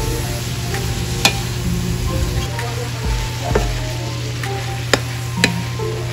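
Shredded cabbage and carrots sizzling in a steel wok as they are stir-fried, with a spatula scraping through them and knocking sharply against the pan a few times, over a steady low hum.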